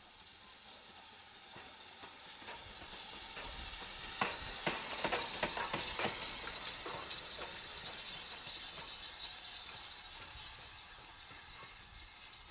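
BR Standard Class 4MT tank steam locomotive passing close by, hissing steam, with a quick run of clanks and knocks from its wheels and motion as it goes past about four to six seconds in. The hiss then fades as it moves away.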